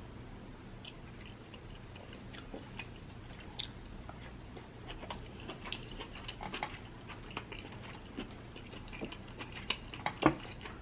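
A person chewing a mouthful of seafood up close, with many small, irregular wet mouth clicks and one sharper click about ten seconds in.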